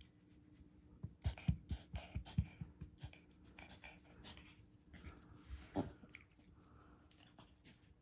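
Toy poodle making a run of quick, sharp inhalations, about four a second for two seconds, then one longer one a couple of seconds later. The owner likens these fits to reverse sneezing.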